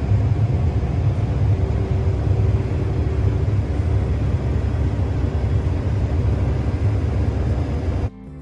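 Combine harvester running steadily in the wheat field: a low, even rumble with a steady hum. It cuts off suddenly near the end as acoustic guitar music starts.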